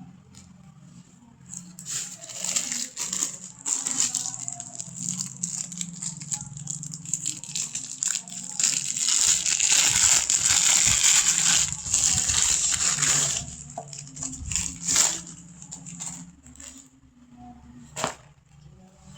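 Packaging being handled: irregular rustling and crinkling with many small crackles, heaviest in the middle stretch, and a sharp click near the end.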